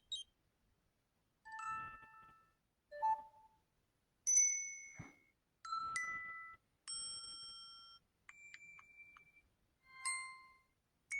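Samsung smartwatch alert tones previewed one after another through its small speaker: about eight short chimes and dings, each under a second and each a different tune, with brief pauses between them.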